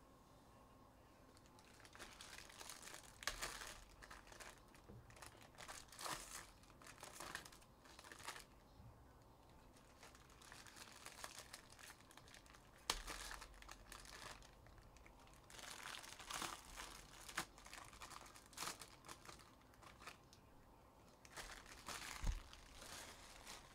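Trading card pack wrappers crinkling and tearing as baseball card packs are opened and the cards handled, in several bursts a few seconds long with short quiet gaps. There are a couple of sharp clicks, the loudest near the end.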